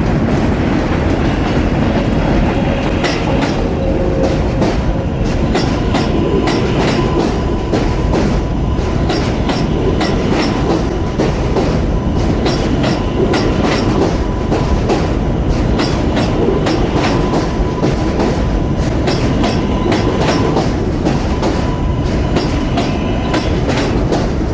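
A New York City subway train running past, its wheels clacking quickly over rail joints above a steady rumble, with a thin high whine held through most of it.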